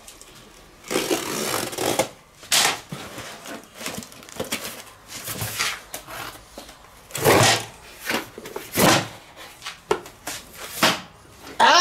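A cardboard box being opened: a utility knife slitting the packing tape, then the cardboard flaps pulled apart and folded back. It comes as a series of short scraping, tearing and rustling noises.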